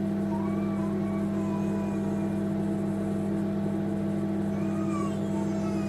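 Steady electrical hum of a running appliance, even and unchanging in pitch.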